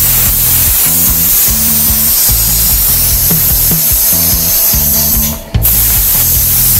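CNC plasma cutter cutting thin carbon steel sheet: the plasma arc's steady loud hiss, with the gantry drive motors' low hum shifting pitch in steps as the torch changes direction. The arc cuts out briefly about five and a half seconds in, between cuts, then restarts.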